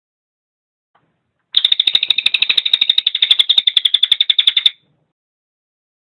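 Crested jay (cililin) giving a fast, dry rattling call of roughly a dozen clicks a second. It starts about one and a half seconds in, runs for about three seconds and cuts off sharply.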